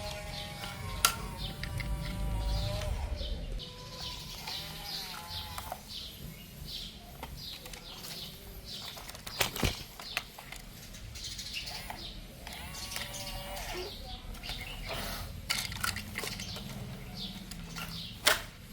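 Small birds chirping over and over, with three sharp knocks: one about a second in, one about halfway through and one near the end.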